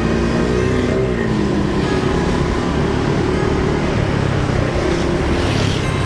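A motor vehicle running, with a steady low rumble of engine and road noise.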